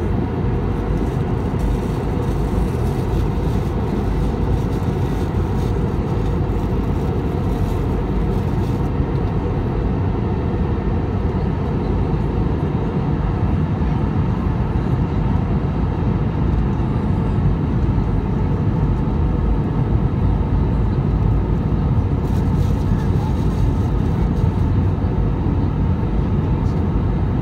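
Airbus A319 cabin noise heard from a window seat over the wing in flight: steady engine and airflow noise, strongest in the low range, with no change in level.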